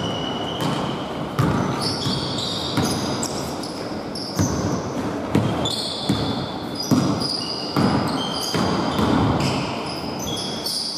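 Basketball game play on a hardwood court: a ball bouncing in irregular thuds and sneakers squeaking in short high chirps, echoing in a large sports hall.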